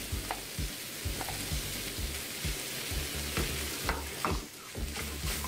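Ground beef and diced vegetables sizzling in a hot skillet while a wooden spoon stirs them, with repeated knocks and scrapes of the spoon against the pan.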